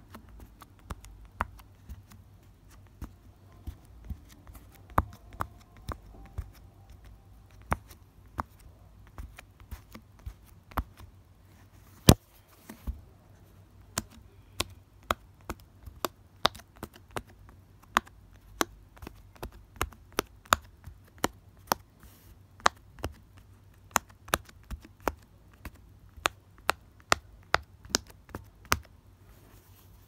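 Silicone push-pop fidget toy, its bubbles pressed through one after another by fingertip, giving a string of sharp pops at an uneven pace of about two a second; one pop about twelve seconds in is the loudest.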